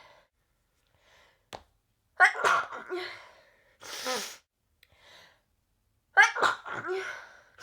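A woman sneezing, with loud voiced sneezes about two seconds in and again about six seconds in, and a sharp breathy burst between them.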